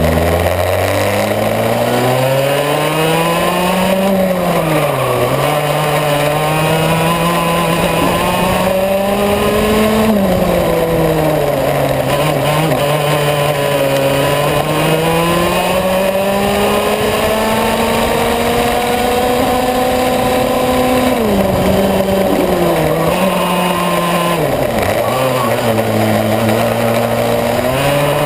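Yamaha KT100S single-cylinder two-stroke kart engine heard close on board, revving hard and climbing in pitch along the straights, then dropping as the driver lifts for the corners, several times over. The deepest drops come about three quarters of the way through, before it settles at lower revs near the end.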